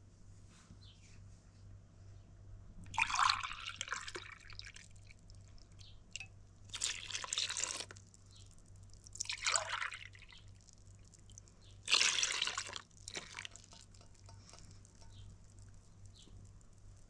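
Egg yolks and sugar being beaten in a bowl with a hand whisk, in four short spells of wet stirring, each a second or two long.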